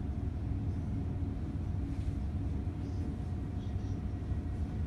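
Steady low rumble of a tram running, heard from inside the passenger compartment, with a faint steady whine over it.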